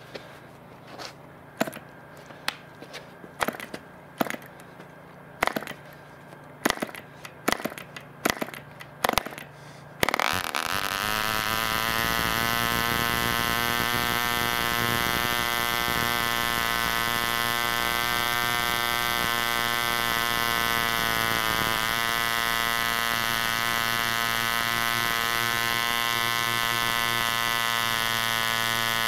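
1940s Bantam 19 spark-ignition two-stroke model engine being hand-started by flicking its wooden propeller: a series of sharp flicks, then about ten seconds in it catches and runs steadily at high speed.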